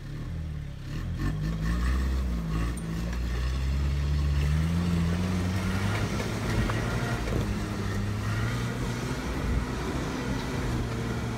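Toyota pickup's engine working hard under load as it climbs a steep, rocky dirt track, the revs rising and falling over the first few seconds and then holding steady.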